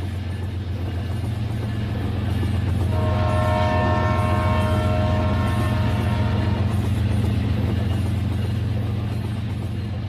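Battery-powered toy trains running on plastic track, their motors making a steady low drone. About three seconds in, a train horn sounds, held steady for nearly four seconds before it fades.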